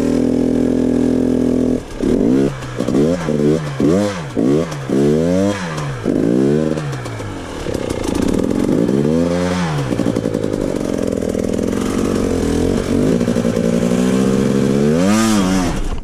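KTM enduro dirt bike engine held steady, then blipped in about six quick revs and held at higher revs with two more sharp revs, the last near the end, as the bike struggles to climb over boulders.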